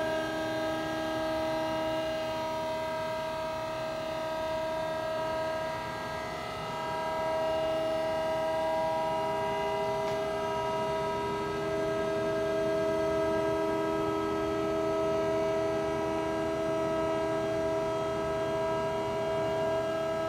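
Electric hydraulic pump motor of a Raymond side loader truck whining steadily as the mast lifts, a pitched hum with a lower tone joining about halfway through.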